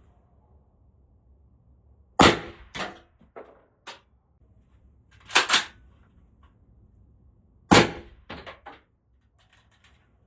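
Suppressed 5.56 rifle shots fired through a .45-calibre suppressor: one about two seconds in, a quick pair near the middle, and one more near the end, each followed by lighter metallic clicks and clatter.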